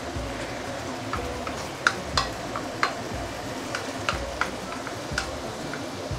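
Wooden spatula stirring chicken pieces in sauce in a stainless-steel wok, with a light sizzle and scattered clicks and taps of the spatula against the pan, which stop near the end.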